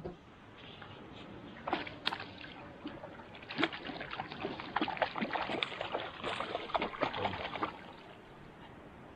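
Water splashing and sloshing in many quick, irregular bursts, starting about a second and a half in and busiest in the middle before dying away near the end.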